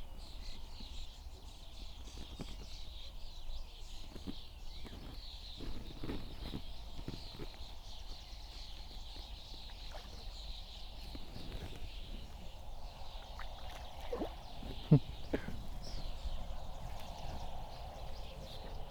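Birds singing steadily in the background, with scattered small knocks and one sharp knock about fifteen seconds in.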